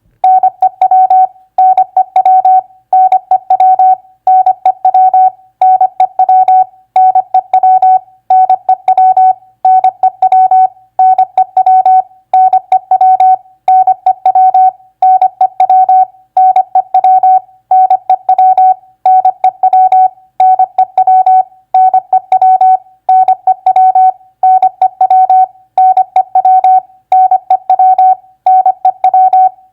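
Morse code (CW) sent as a keyed audio tone at 25 words per minute, one steady pitch switched on and off in dots and dashes. It spells common three-letter words, a new word about every 1.3 seconds with a short pause between words.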